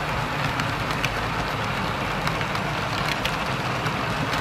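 Model railroad passenger cars rolling past on the track: a steady rolling rumble with a faint low hum and scattered light clicks.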